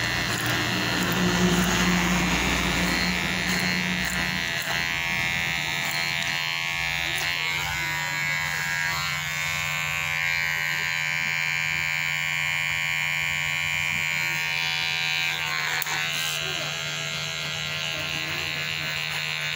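Cordless electric hair clipper running with a steady buzz as it trims the hair at the back and sides of a head, its tone changing briefly a couple of times.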